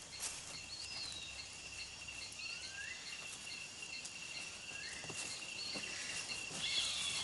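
Tropical rainforest ambience: insects keep up a steady high trill and a regular high chirping, and a couple of short rising bird whistles come in along with it.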